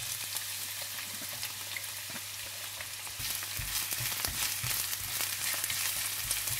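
Chopped onion sizzling and crackling in hot oil in a pan, frying to brown for a samosa filling. From about halfway through, a spoon stirs the onion, knocking now and then against the pan.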